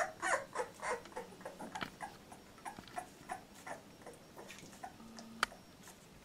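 Two-week-old chocolate Labrador retriever puppy whimpering in short squeaks, about three or four a second, fading out after the first couple of seconds. A few faint clicks follow, with one sharp click about five seconds in.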